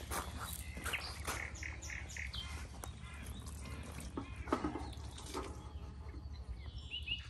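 Small birds chirping in short calls, twice, with rustling and clicks from a carp weigh sling being lifted and handled.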